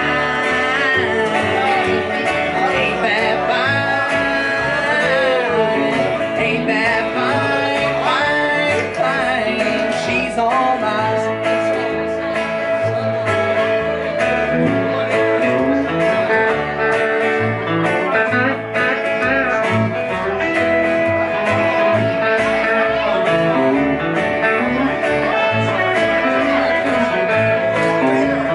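Live country band playing: electric guitar, upright bass and acoustic guitar, with the electric guitar playing a lead of bent notes in the first part.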